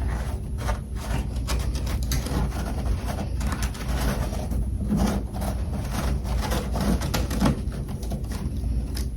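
Close-miked crunching and chewing of freezer frost: a rapid, irregular run of crisp crunches, with a steady low hum underneath.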